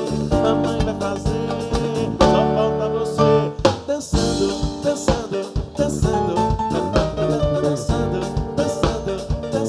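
Live band music: a drum kit playing under held instrumental notes, with no words sung.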